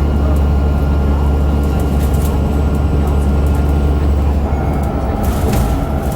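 ADL Enviro500 MMC bus with a Cummins ISL8.9 diesel and ZF six-speed automatic gearbox, running under way with a deep steady drone and a thin whine, the odd axle sound it is known for. About four and a half seconds in, the drone eases and a higher whine comes in.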